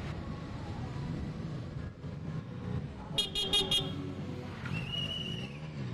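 Escort motorcycle engines running as they ride past, with a horn giving a few rapid toots a little after three seconds in and a longer high tone near the end.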